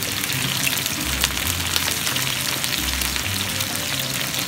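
Sliced onions sizzling and crackling in hot olive oil in a frying pan, stirred with a wooden spoon. A low bass line of background music repeats underneath.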